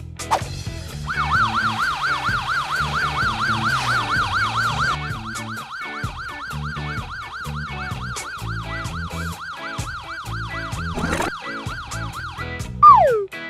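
Emergency siren sound effect: a fast warbling wail, about three to four swings a second. It starts about a second in, drops in level about halfway and stops near the end, followed by a short falling whistle-like glide. Background music plays underneath.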